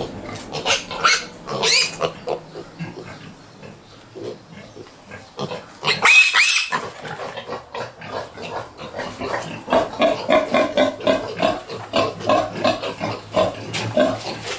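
Pigs grunting and squealing: short squeals in the first couple of seconds, one loud squeal about six seconds in, then a quick series of grunts near the end.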